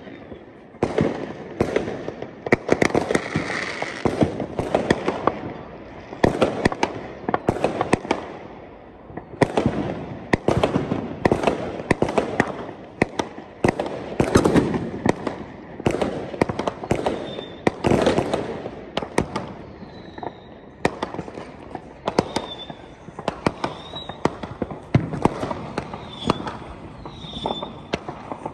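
Many fireworks going off across the neighbourhood: a near-continuous barrage of bangs and crackling, with short high whistles in the second half.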